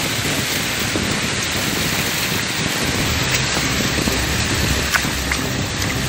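Steady rush of stream water flowing and splashing over rocks, with a light tap about five seconds in.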